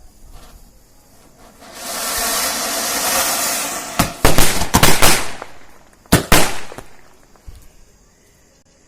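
Anar fountain firecracker hissing as it sprays, starting about two seconds in, then the sky shots stuck into it going off in a quick run of loud bangs and cracks, with two more about a second later.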